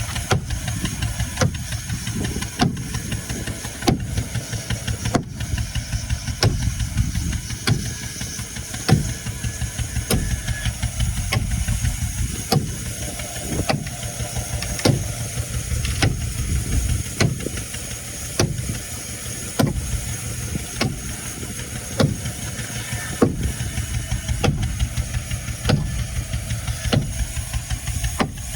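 A motor running steadily, with a sharp knock about every second and a quarter.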